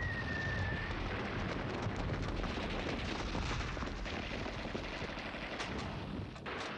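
Battle sound effects: the falling whistle of a dropping bomb, ending about a second in, then a steady din of explosions with a deep rumble and crackling gunfire.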